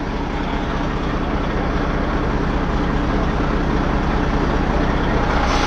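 Freightliner semi-truck's diesel engine idling steadily, heard up close by the open cab door.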